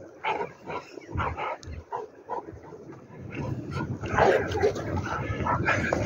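Dogs play-fighting, barking and yipping in quick short bursts, getting busier and louder from about four seconds in.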